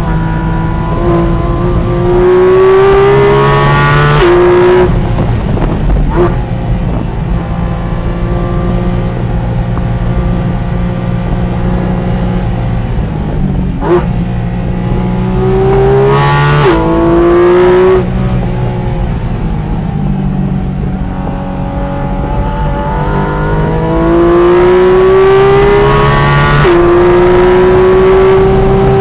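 Car engine heard from inside the cabin at speed on a race track, accelerating hard with its pitch rising, then dropping suddenly at upshifts about four seconds in, around sixteen seconds in and near the end. In between it runs lower and steadier while the car slows and corners.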